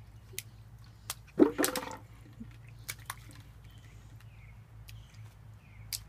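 Bare feet and hands slapping and tapping on wet concrete: a few scattered light taps, with one louder short burst about a second and a half in.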